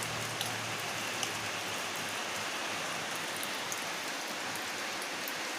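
Steady rain falling, an even hiss with a few sharper drip taps scattered through it.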